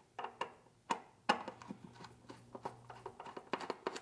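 A screwdriver driving the screws of a water heater's sheet-metal access cover: irregular clicks, taps and scrapes of metal on metal. A faint steady low hum runs under the first three seconds.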